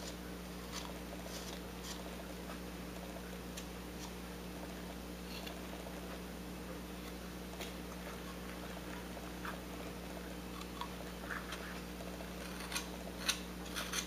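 Faint, scattered clicks and short scrapes of a carving V-tool cutting into wood, coming more often near the end, over a steady low hum.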